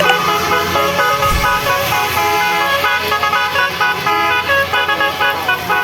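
Tour bus telolet horns playing a tune: several horn tones sounding together and stepping from note to note every fraction of a second, loud throughout.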